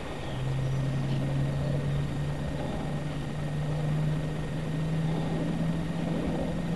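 Metal-geared HK Vigor sail winch on an RC yacht running as it trims the sails: a steady motor hum that starts just after the beginning and rises slightly in pitch over the first few seconds.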